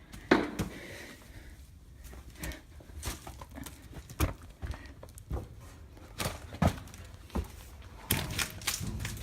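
Irregular knocks and thuds, about one every half second to a second, with a denser cluster of them near the end.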